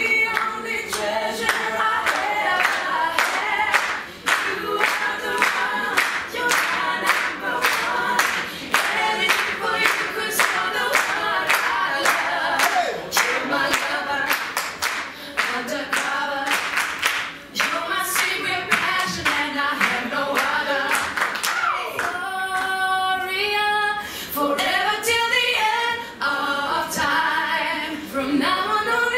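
A small group of singers performing a cappella in close harmony, with steady rhythmic hand clapping keeping time. The clapping stops about three-quarters of the way through, leaving the voices alone.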